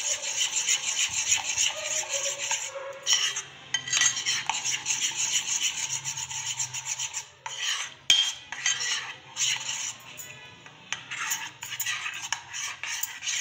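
A metal spoon beats a thick gram-flour (besan) and rice-flour batter in a bowl, with rapid scraping and clicking against the bowl's sides. The strokes ease off briefly twice, then carry on.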